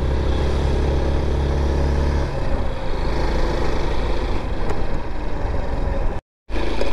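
Motorcycle engine running while riding, with wind and road noise. About two seconds in, the steady engine tone gives way to a rougher, noisier sound, and the audio cuts out briefly near the end.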